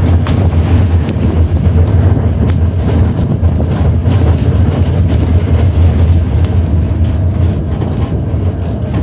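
Vintage PCC streetcar running along its track, heard through an open window: a steady low rumble with wheel-on-rail noise and scattered clicks.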